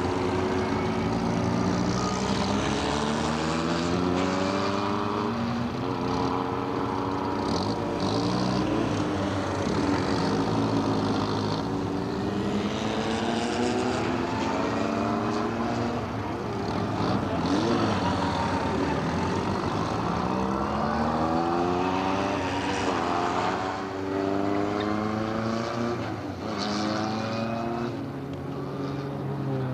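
Formula Ford race car engines running hard on track, their pitch climbing again and again and dropping back at each upshift as the cars accelerate through the gears, with cars passing by.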